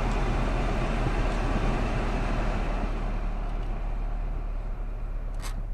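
Saab 9-5's climate-control blower blowing cold air as a steady rush, over the low hum of the idling engine; the rush eases off over the last couple of seconds.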